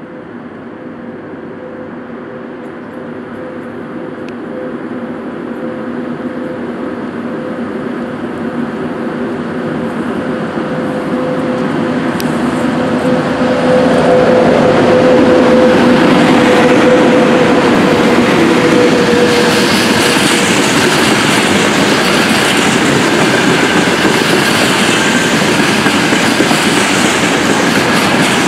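VL80k two-section AC electric locomotive approaching with a freight train and growing steadily louder, with a steady hum as it draws level about halfway through. The hum fades, and the freight wagons rolling past on the rails take over as a loud, even rumble.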